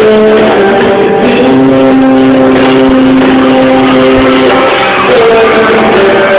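Live pop-rock band music with guitar, loud and even throughout, with a long held note in the middle.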